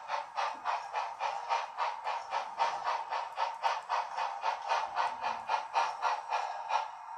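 Model steam locomotive's sound system playing steam exhaust chuffs at a steady rate of about four a second, each a hissing puff, with almost no low end as from a small speaker.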